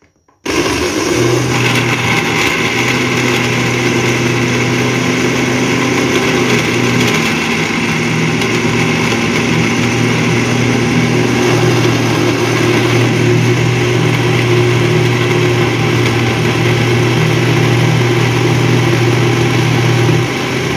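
Electric glass-jar blender switched on about half a second in and running steadily, puréeing carrot chunks with eggs, oil and sugar into a liquid cake batter.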